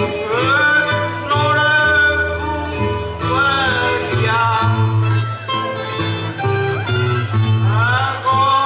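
Traditional cantoria ao desafio: a man's singing voice over plucked acoustic guitars and a steady bass line. The voice comes in short sung phrases, with the guitars running on between them.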